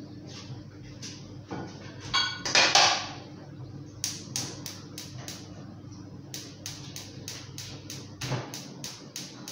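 A loud clatter about two seconds in, then a quick, regular series of sharp knocks on a hard surface, about four a second, with one short break.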